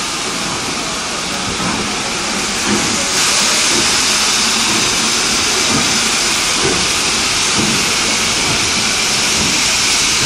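Steam locomotive hissing steam steadily, growing louder about three seconds in.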